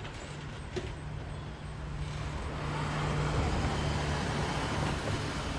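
A motor vehicle or machine engine running with a steady low hum, growing louder from about two seconds in.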